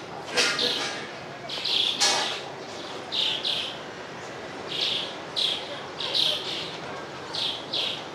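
A bird chirping repeatedly: short high calls, mostly in quick pairs, roughly one pair a second, over steady outdoor background noise.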